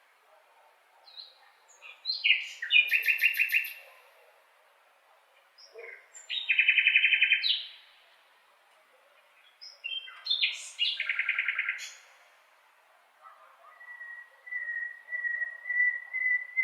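Blackbird singing: separate phrases of quick trilled notes every few seconds, with quiet gaps between, then a long steady whistled note held from about three-quarters of the way through.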